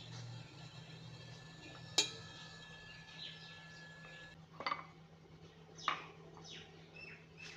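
Kitchen utensils clinking against a pot: one sharp clink about two seconds in, then two softer knocks a little over a second apart.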